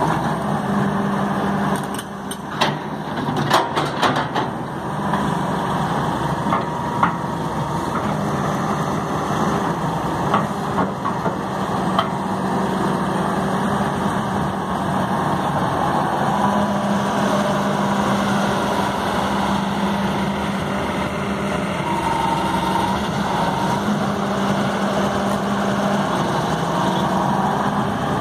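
John Deere 330C LC hydraulic excavator's diesel engine running steadily while the boom and bucket are worked, with a cluster of sharp knocks about two to four seconds in and a few single knocks after.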